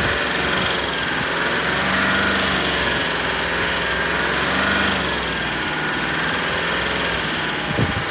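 Range Rover 4.4-litre SDV8 twin-turbo diesel V8 running steadily at idle. It has the knock or tap that the owner says remains even after new turbos, EGR valves, oversized big-end bearings and a skimmed crank.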